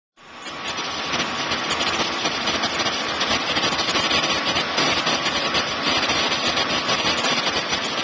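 An engine running steadily, a loud even hiss with a faint steady hum, cutting in suddenly just after the start.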